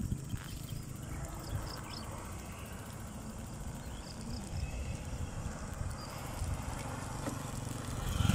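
Wind rumbling unevenly on the microphone of a moving bicycle, with the light rattle and rolling of the bike on a concrete road.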